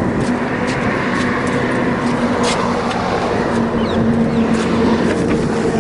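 Highway traffic: steady noise of vehicles going past, with one engine's hum growing louder about four seconds in.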